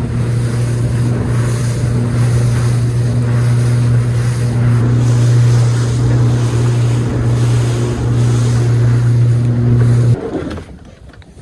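Motorboat engine running steadily under way, a low constant hum over a rush of noise, then shutting off abruptly about ten seconds in.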